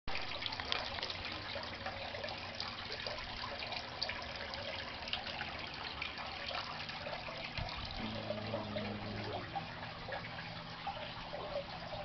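Steady trickling and splashing of water into a goldfish aquarium, a dense crackle of small drips and bubble pops, from the return flow of a homemade filter.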